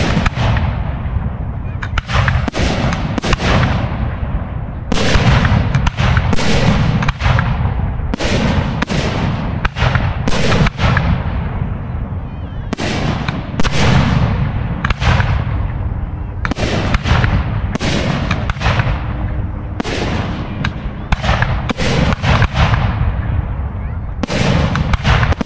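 Aerial fireworks shells bursting in quick succession at a professional display: sharp reports one after another, with a continuous low rumble of echoes between them.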